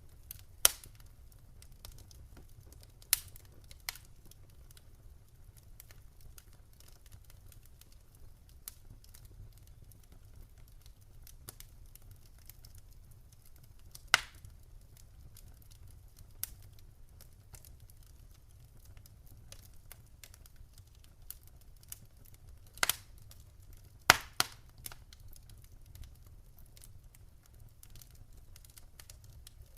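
Wood campfire crackling: scattered sharp pops and snaps, a few much louder than the rest and two close together near the end, over a steady low rumble.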